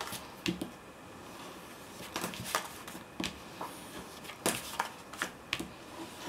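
Bone folder scoring designer paper along the edge of glued-on greyboard on a soft mat: a string of short scraping strokes with paper rustling, with a quieter moment about a second in.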